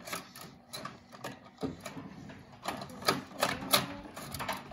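Irregular clicks, knocks and clatter of plastic Paw Patrol toy vehicles being handled and pushed across a wooden table.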